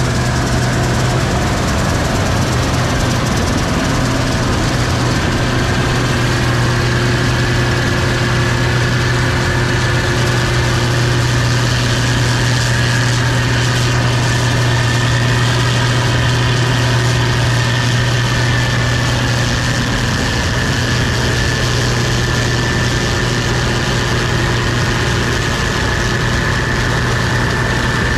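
Case IH 2388 Axial-Flow combine running steadily, a heavy low engine drone with a constant high-pitched whine over it.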